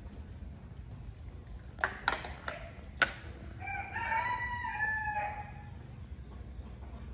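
A rooster crowing once, a call of about two seconds in the second half, after three or four sharp knocks a little earlier.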